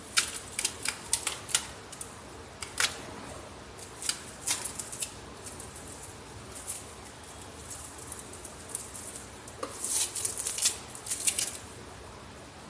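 Brown packing tape and paper being handled: irregular crisp clicks and crackles as the tape is pulled, cut and pressed into place, with a dense run of crackling about ten seconds in.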